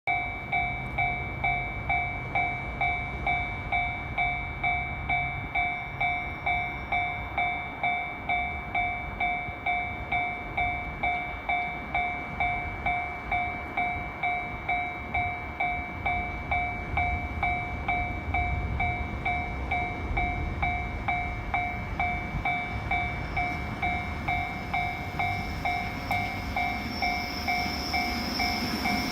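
Japanese railway level crossing warning bell ringing steadily, an evenly paced electronic ding at about two strikes a second. Over the last few seconds an approaching train's rumble and rising hiss build up beneath it.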